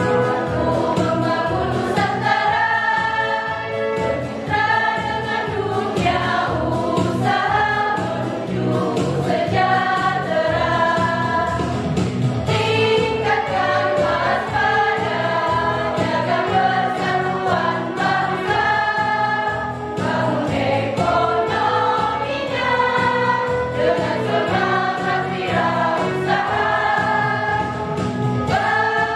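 A women's choir singing in parts, with long held notes.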